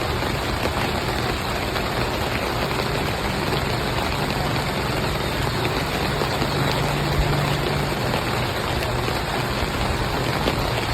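Steady rain noise with a low, even hum underneath.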